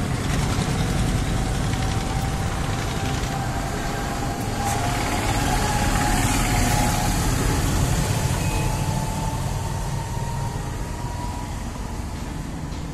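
HMT 2522 tractor diesel engine running steadily on a borewell drilling rig, driving its belt pulleys. A faint whine rises slowly in pitch over the run.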